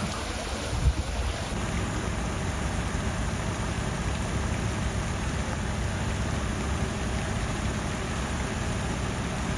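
Steady rush of water with wind buffeting the microphone, and one sharp thump about a second in.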